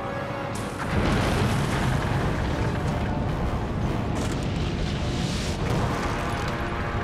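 Tense film-score music, cut into about a second in by a loud, sustained blast of earth and debris, like an eruption, that takes over from the music.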